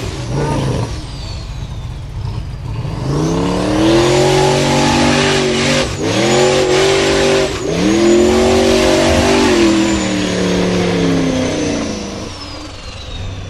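Unlimited-class formula offroad buggy's engine revving hard in repeated surges on a steep dirt hill climb, its pitch rising and falling with each burst of throttle, with a thin high whine following it. There are brief drops about six and seven and a half seconds in, and the engine eases off near the end.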